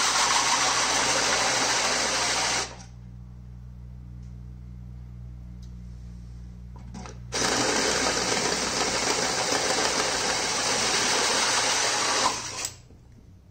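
Handheld cordless power tool running with a steady rushing whir in two runs: about two and a half seconds, a pause of about four and a half seconds with only a low hum, then about five seconds more, cutting off abruptly.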